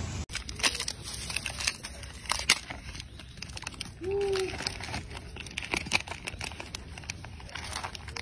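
Scattered dry crackling and rustling as rhesus macaques scuffle over a piece of food on leaf-strewn ground, with one short pitched macaque call about four seconds in.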